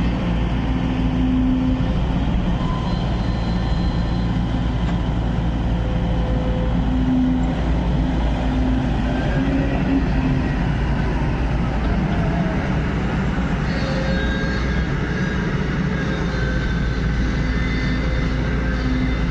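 Backhoe loader's diesel engine running steadily at working speed, a continuous low drone with no break.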